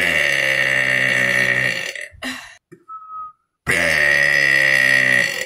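A person burping deliberately: two long, loud burps of about two seconds each, the second starting a little past halfway, with a short fainter sound in the pause between them.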